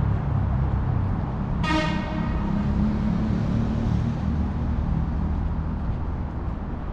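Street traffic with a steady low rumble of passing vehicles. About two seconds in, a car horn gives one short toot.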